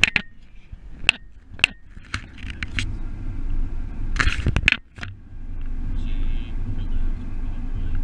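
Car driving along, its low road rumble heard from the window-mounted camera, with a few sharp clicks in the first few seconds and a short burst of louder noise about four seconds in.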